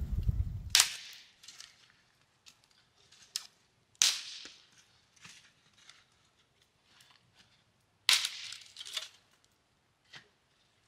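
Dry dead branch being snapped by hand over a fire ring: three loud sharp cracks about four seconds apart, each trailing into a short splintering crackle, with smaller snaps between. A brief low rumble cuts off just before the first crack.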